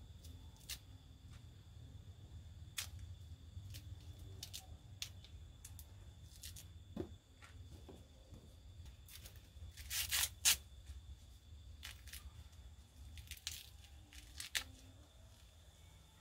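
Fresh baby corn husks being peeled and torn off by hand: scattered crisp rips and crackles, the loudest cluster about ten seconds in.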